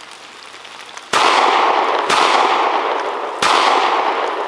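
Three shots from a 9mm Smith & Wesson M&P Shield pistol, the first about a second in and the others about a second and a second and a half apart. Each is followed by a long ringing tail.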